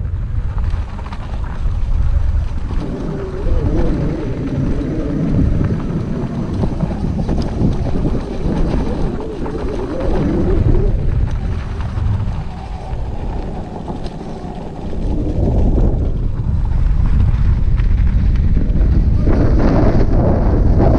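Wind buffeting the microphone: a loud, low rumble that swells and dips, louder in the last few seconds.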